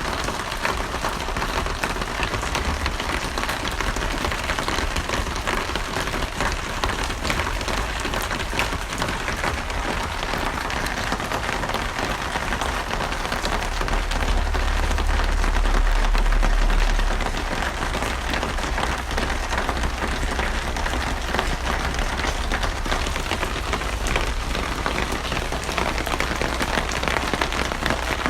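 Steady rain falling, an even hiss of many drops, with a low rumble underneath that swells for a few seconds around the middle.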